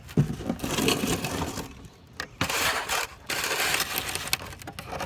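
Scooter packaging being handled: crunching, rustling noise in two bursts of about a second each, with a few knocks in between.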